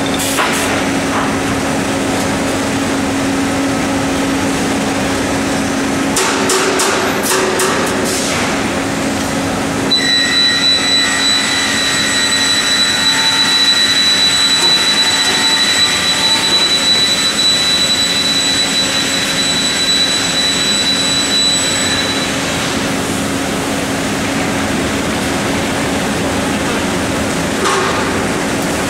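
Interwood LSC1300 timber bridge loader and its roller conveyors running: a steady mechanical hum, a short run of clicks and knocks about six to eight seconds in, and a high steady whine from about ten seconds in until about twenty-two seconds in.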